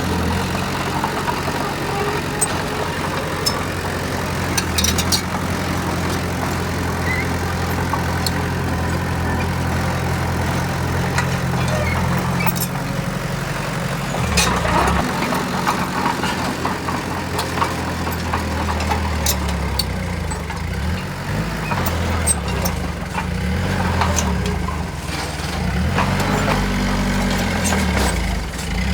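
Heavy diesel engine of a dump truck or bulldozer running at low revs, its pitch shifting a few times, with scattered sharp clicks and knocks.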